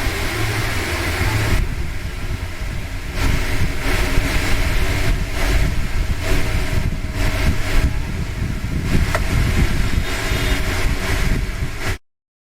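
Barsha high-speed table fan running, with a steady motor hum under a rush of air from the blades. The hiss drops a little about a second and a half in, then the sound wavers unevenly and cuts off suddenly near the end.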